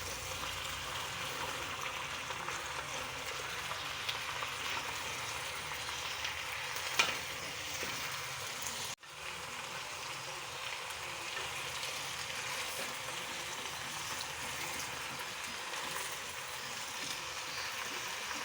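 A pot of beef and vegetable stew cooking over the heat with a little water, giving a steady sizzling hiss. The sound cuts out for an instant about halfway through.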